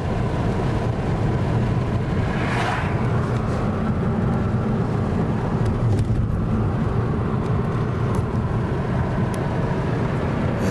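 Steady road and engine noise inside a moving car's cabin, a low rumble, with a brief whoosh about two and a half seconds in.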